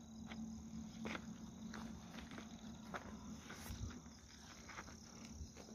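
Crickets chirping faintly, with a few soft clicks.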